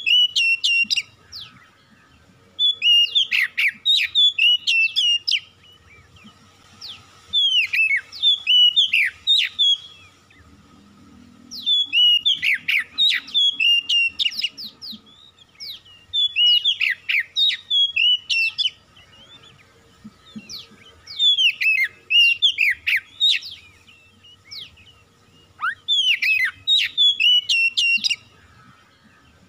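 Oriental magpie-robin (kacer) singing loud, varied whistled phrases, each two to three seconds long with short pauses between them, about seven phrases in all.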